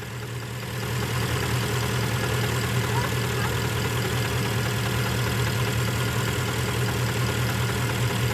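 Porsche Panamera 4.8-litre V8 idling when fully hot, a steady engine note that grows louder over the first second, with the knock that appears only at hot idle and goes away above about 1000 rpm. The owner wonders whether it is cylinder scoring.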